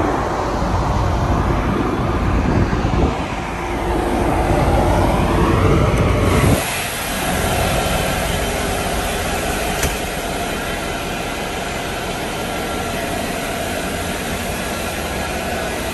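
A deep, uneven rumble from the open deck of a ship, with wind on the microphone. About six and a half seconds in it changes abruptly to the steady hum of the engine room's diesel generator sets running, with several held tones.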